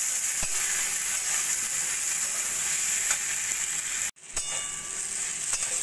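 Vegetables and tomato frying in hot oil in a metal wok, a steady sizzle, with a metal spatula stirring them. The sound drops out for a split second about four seconds in.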